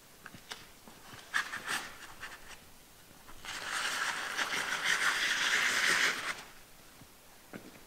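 A person sliding down a steep sandstone slope, with a few sharp scuffs and then a steady scrape on the rock lasting about three seconds.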